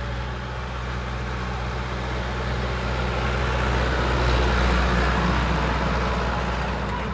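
Heavy vehicle's diesel engine running steadily. It grows louder to a peak just past the middle, then eases off, as if it drives past.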